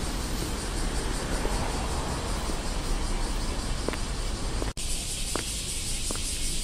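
Steady rushing background noise with a low rumble. It cuts off abruptly about three quarters of the way through and comes back as a thinner hiss, with a few short, thin, high chirps scattered over it.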